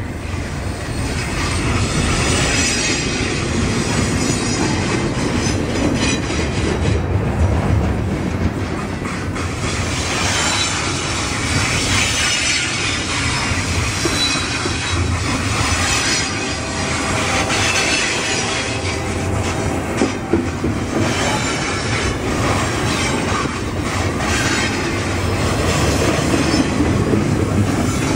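Double-stack intermodal freight train's container well cars rolling steadily past, the wheels rumbling and clattering on the rails, with high wheel squeal wavering on and off above it.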